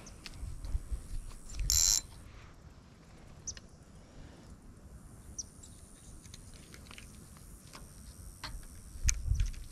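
Close handling of a spinning rod and reel while a soft-plastic worm is rigged: scattered small clicks and taps with a few low knocks, and a short high buzz about two seconds in.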